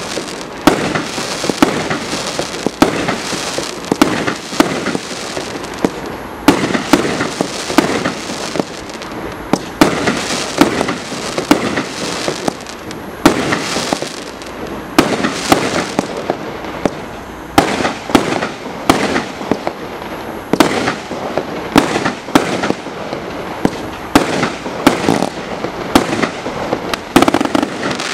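A 100-shot, 1-inch consumer fireworks cake firing shot after shot: sharp bangs several times a second over constant crackling, with some of the loudest bangs near the end.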